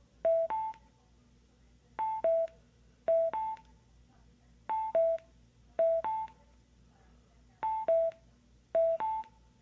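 Bluetooth speaker playing the Bose-style two-note charging/connection chime over and over. Seven short two-tone beeps alternate between a falling pair and a rising pair, one every one to two seconds.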